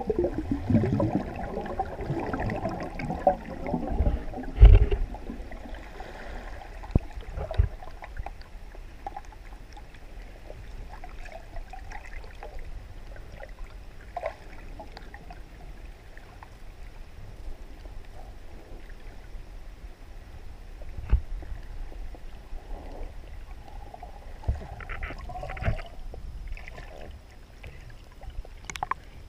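Muffled underwater water noise inside a GoPro's waterproof housing: sloshing and rumbling with a few low thumps over the first several seconds, the strongest about four and a half seconds in. It then settles to a quieter steady wash with scattered faint ticks, and a few short sharper sounds come near the end.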